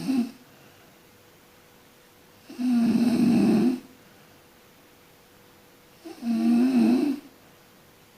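A sleeping person snoring. The end of one snore comes right at the start, then two more snores of a little over a second each, about three and a half seconds apart, with quiet between them.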